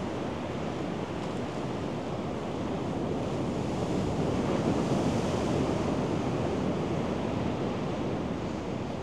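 Ocean surf breaking and washing up a sandy beach: a steady rushing wash that swells louder about halfway through as a wave breaks, then eases.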